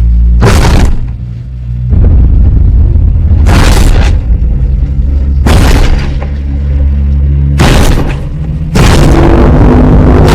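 Loud, distorted Godzilla-style monster sound effect: a deep booming rumble struck by sharp crashes about every two to three seconds, then a continuous roaring noise setting in near the end.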